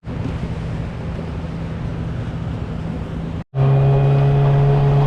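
A boat engine running steadily with a constant hum. There is a sudden cut about three and a half seconds in, after which the engine hum comes back louder with a steadier, stronger tone.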